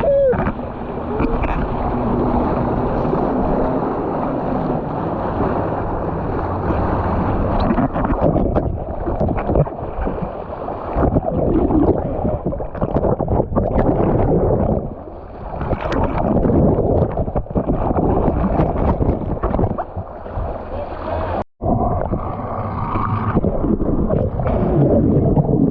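Motorboat running under way: engine drone mixed with rushing water and wind buffeting the microphone. The sound cuts out for an instant about three quarters of the way through.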